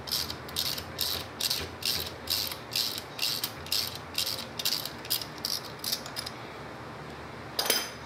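Ratchet wrench clicking on its backswings, about two strokes a second, as it loosens a terminal nut on a golf cart's electric drive motor. The clicking stops about six seconds in, and a single louder metal clink follows near the end.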